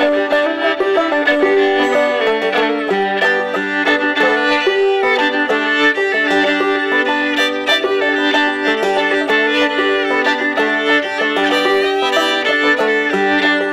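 Old-time fiddle tune played by a fiddle and a fretless banjo together: the fiddle carries the melody while the banjo is picked clawhammer style beneath it, steady and unbroken.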